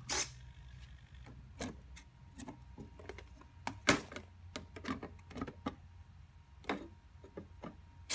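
A run of sharp clicks and light knocks from a small hand-built vending machine's door: the servo-driven latch releasing and the hinged door and boxed item being handled. The loudest clicks come near the start, about four seconds in and at the very end, over a faint steady hum.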